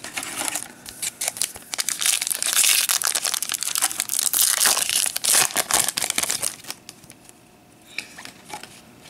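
Foil wrapper of a Panini Prizm baseball card pack crinkling and tearing as it is ripped open by hand. The crinkling stops about seven seconds in, leaving a few light clicks.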